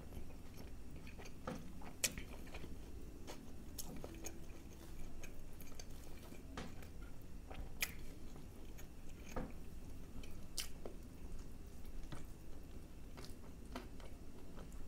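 Close-miked eating: a man chewing naan and chicken curry, with irregular wet mouth smacks and clicks. Soft naan is torn by hand and dipped into the thick curry.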